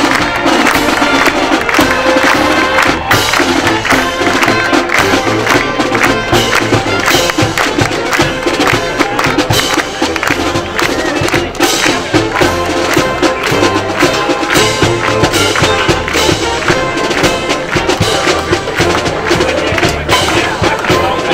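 Military brass marching band playing a march while marching: sousaphones, trombones and trumpets held over a steady drum beat.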